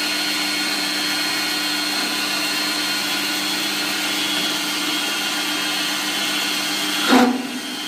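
Metal lathe running steadily, its motor and drive giving a whine of several steady tones, while a boring bar is fed gently into an aluminium part. About seven seconds in comes a brief louder sound that falls in pitch.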